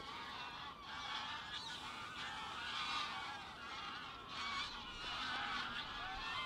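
A flock of greylag geese honking, many calls overlapping without a break. The angler puts the noise down to the flock having been disturbed.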